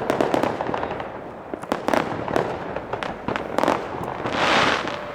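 Fireworks going off, among them the Iskra Napad: a rapid, uneven run of sharp bangs and crackles, then a louder hissing burst about four and a half seconds in.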